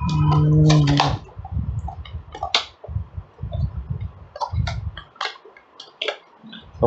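Hands working open the GoPro's plastic retail packaging: scattered sharp clicks and taps of plastic with low handling thuds, and a brief low hum in the first second.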